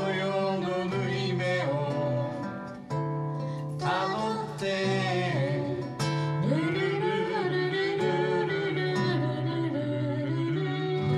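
Acoustic guitar strummed in chords while a voice sings a song over it, performed live.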